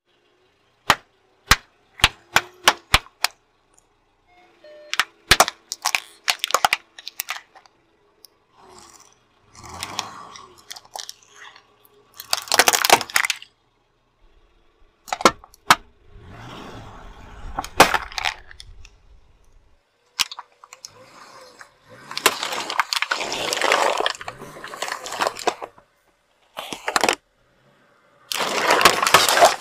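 A car tyre crushing objects one after another: first a quick string of sharp pops as water balloons burst, then cracks and crunches of plastic toys breaking, and later longer noisy bursts as soda bottles and balls give way under the tyre. The sounds come in separate bursts with silent gaps between them.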